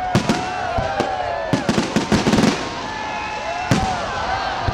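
Fireworks going off: a rapid string of sharp bangs and crackles, thickest about two seconds in, with voices of the watching crowd rising and falling over them.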